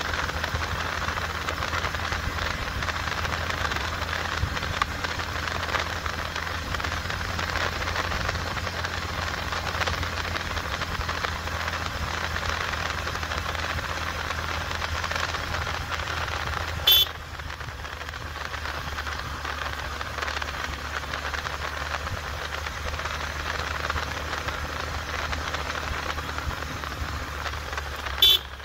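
Small motorcycle engine running steadily at road speed, with wind and road noise, heard from the handlebars. Two sharp clicks, one about two-thirds of the way through and one near the end.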